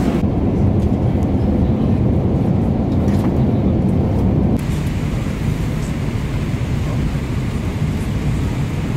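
Steady cabin noise of a Boeing 777-300ER airliner in flight, a low, even rushing sound. It drops a little in level about four and a half seconds in.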